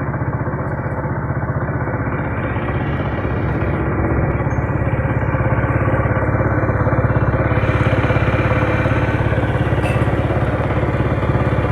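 Honda CD 70's 70cc single-cylinder four-stroke engine running steadily after a timing chain repair, demonstrating that the engine noise has been cured. It gets a little louder and brighter in the last few seconds.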